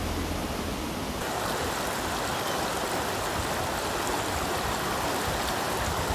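Shallow stream rushing and splashing over rocks: a steady wash of water that grows fuller a little over a second in.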